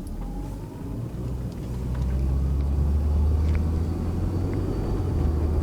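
2001 Volvo S40's 1.9-litre turbocharged four-cylinder engine running at low speed with a low, steady drone that grows louder over the first two seconds and then holds.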